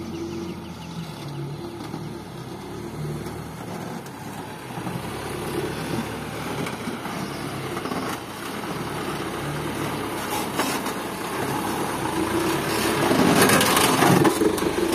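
Isuzu Elf HD dump truck's diesel engine running as the fully loaded truck drives slowly closer over rough dirt. It grows steadily louder and is loudest near the end as the truck pulls alongside.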